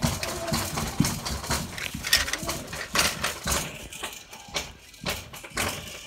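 Battery-powered toy train (North Pole Express set) running on its plastic track, giving an irregular clicking and rattling of wheels and cars.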